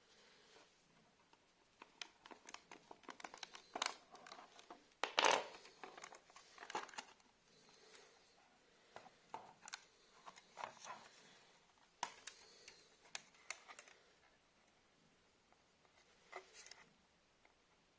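Hands working on an AJAX alarm siren during a battery change: scattered small plastic clicks, scrapes and rustling, loudest about five seconds in.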